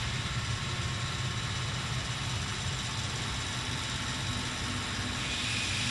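Steady low mechanical drone of the powered-up CNC router and its equipment, with a hiss coming in near the end.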